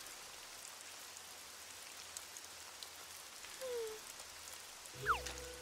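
Steady rain falling, an even soft hiss with light ticks of drops. A short falling tone sounds a little past halfway, and near the end a music cue opens with a quick downward sliding note and low notes.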